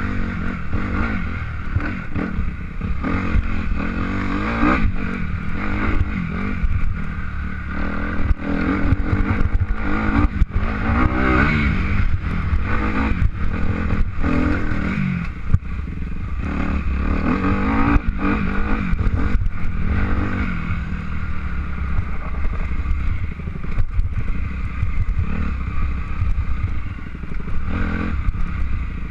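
A motor engine running, its pitch rising and falling again and again over a steady low noise.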